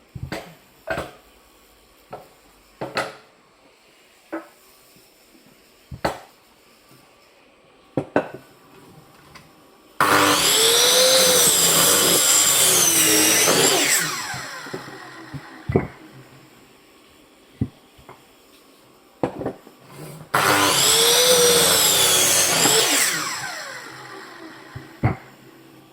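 Electric saw cutting firewood twice: each cut starts abruptly and runs about four seconds, its motor pitch wavering as it bites into the wood, then winds down over a second or two. Knocks and clunks of wood being handled come before, between and after the cuts.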